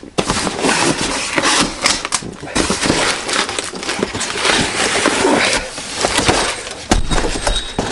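Plastic wrapping and cardboard packaging rustling and crinkling as a light bar is cut free and pulled out of its box, with a dull low thump about seven seconds in.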